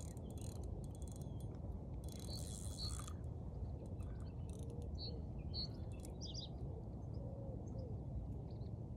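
Fishing reel ticking in irregular bursts of clicks as a hooked fish is played on the rod, over a steady low rumble. A few faint bird chirps come in around the middle.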